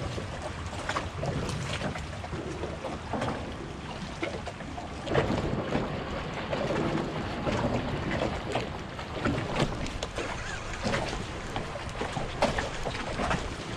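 Choppy water lapping and slapping against a small skiff's hull and the bridge pilings, in irregular splashes, with wind buffeting the microphone. No motor is running.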